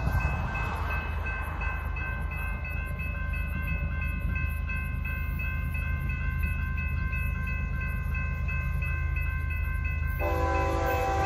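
A freight train of covered hopper cars rolling past with a steady low rumble, while a grade-crossing bell rings at an even beat. About ten seconds in, a diesel locomotive's multi-chime horn starts sounding loudly.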